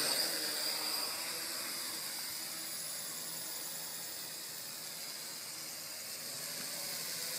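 WLToys V959 quadcopter's small motors and propellers making a steady high, hissy whir as it flies. The sound dips a little in the middle and comes back up toward the end.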